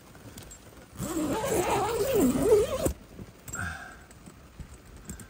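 A tent window zipper being pulled shut for about two seconds, starting about a second in; its buzz rises and falls in pitch as the pull speeds up and slows down.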